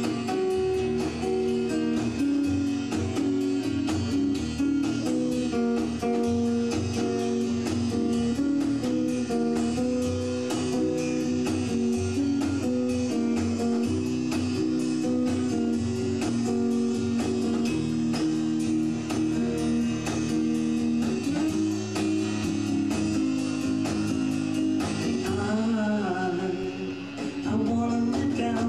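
Guitar-led background music with a steady beat. Near the end a singing voice comes in.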